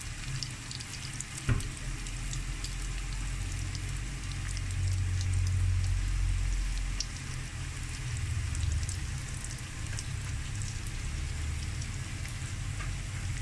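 Lumpia-wrapped sweet potato rolls (kamote turon) deep-frying in a pan of hot oil, sizzling steadily with small crackles. A low rumble under the sizzle swells in the middle, and a single knock sounds about a second and a half in.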